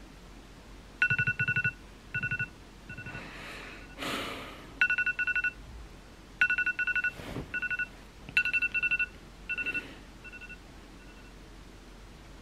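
Alarm beeping in quick clusters of high electronic beeps, the clusters repeating and growing fainter near the end, with a few rustles of bedding in between.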